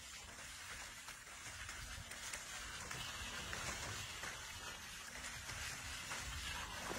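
A pair of oxen hauling a plough through a flooded rice paddy: steady splashing and sloshing of hooves and plough in the mud and water.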